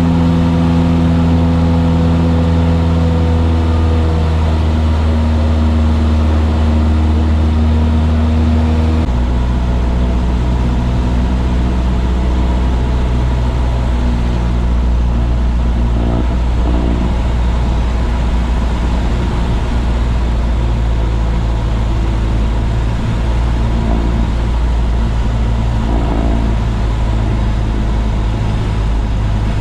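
Cessna 172's piston engine and propeller droning steadily, with the engine note dropping to a lower, steady pitch about nine seconds in as power is pulled back.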